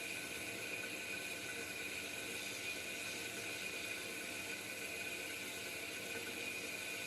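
Pilous semi-automatic metal-cutting bandsaw running with its blade partway through a 5-inch solid round bar: a steady whirring hiss with a few constant high tones.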